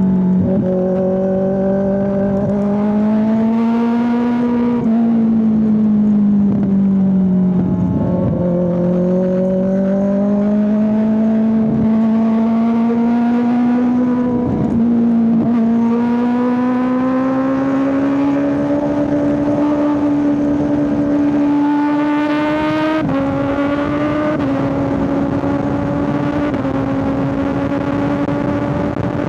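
Kawasaki ZX-6R 636 inline-four sportbike engine cruising at a steady, fairly high rpm, heard from the rider's position. The engine note rises and falls gently with the throttle, dipping briefly a few times and stepping down slightly about 23 seconds in, as with a roll-off or upshift.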